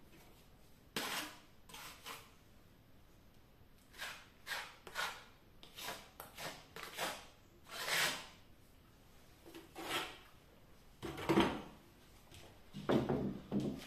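A trowel scraping over fresh plaster around an electrical flush box, in a string of short irregular strokes that get louder near the end.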